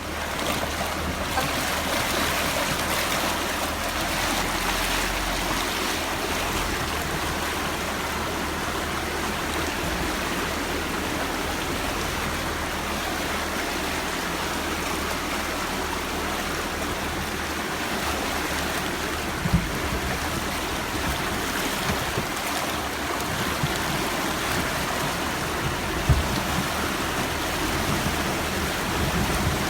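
Steady rush of river water around a Jeep wading through the Verde River, with a low engine hum beneath and a couple of brief knocks late on.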